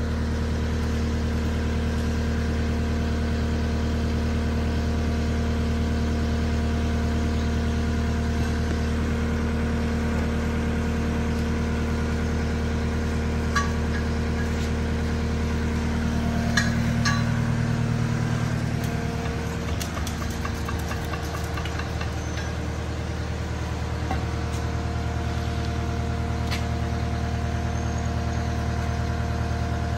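Caterpillar 259D3 compact track loader's diesel engine idling steadily, its hum swelling and then shifting for a few seconds past the middle. A few light metal clinks from a pry bar levering the rubber track off the idlers.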